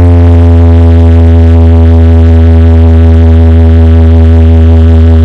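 Electronic music: one deep synthesizer bass note held steady and very loud, with a dense buzzing stack of overtones above it.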